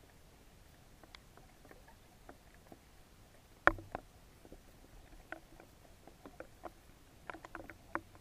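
Irregular small clicks and knocks picked up underwater on a baited lake bed, with one sharp knock about halfway through and a quick run of clicks near the end.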